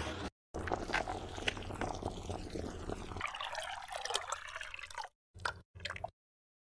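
Soup poured from a pan into a ceramic bowl, splashing and trickling. Near the end the sound breaks into short clipped pieces that stop abruptly.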